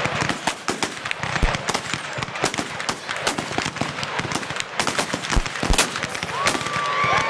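Black-powder muzzle-loading muskets firing along a line, many shooters at once: sharp irregular shots, several a second, often overlapping.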